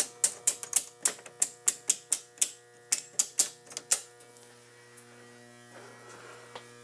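Circuit breakers in a breaker panel being snapped off one after another, about four sharp clicks a second for the first four seconds, to shed the load before the transformer is switched off. Underneath, the steady hum of the step-down transformer feeding the panel, which is very loud.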